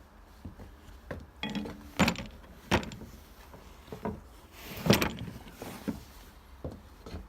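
Metal drill press parts being handled and set down on a workbench: a series of irregular knocks and clinks, the loudest about two, three and five seconds in, one with a brief ring.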